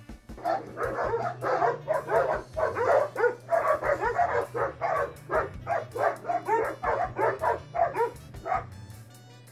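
Dogs barking in fast, repeated volleys from about half a second in, stopping shortly before the end.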